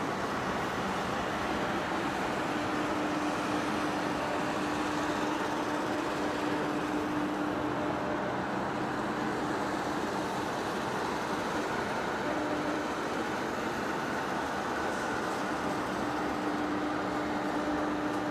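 Heavy-duty face lathe running while machining a rotor shaft, a steady mechanical noise with a faint hum that fades in and out.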